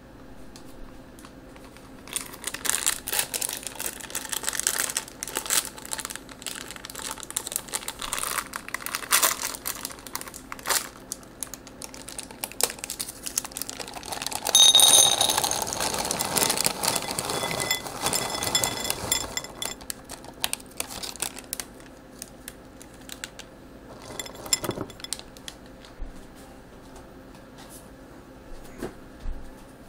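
A bag of chocolate chips crinkling as it is handled and opened. About 15 seconds in, the loudest part: chocolate chips pouring into a glass bowl, with the glass ringing briefly, then settling into a few smaller rattles.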